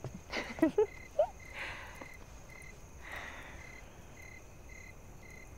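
Cricket chirping in the background, a short high pulse repeating about three times a second. Soft cloth rustles come twice and a brief word comes in the first second.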